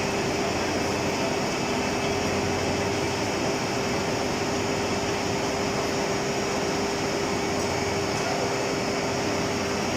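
SPT-280 milling-sawing machine running steadily: even machine noise at a constant level with one steady tone throughout.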